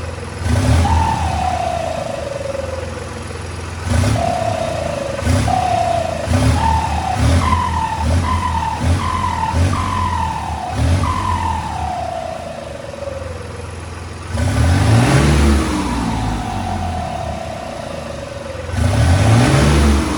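Turbocharged engine revved over and over, its turbo whistling: a whine that climbs with each rev and glides down as the turbo spins down. There is one rev about half a second in, a run of quick blips between about 4 and 11 seconds, and two longer revs near the end.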